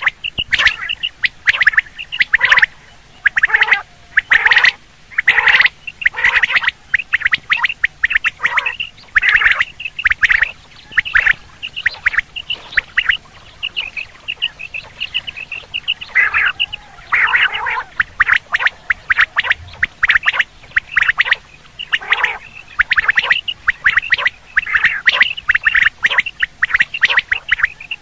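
Quail calling over and over in quick, harsh, closely packed bursts, loud throughout, with short pauses between runs of calls. This is the kind of quail call that is played to lure quail during the hunting season.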